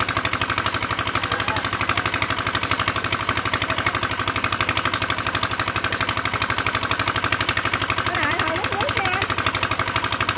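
Small boat engine idling, a fast, even chugging that keeps up without change.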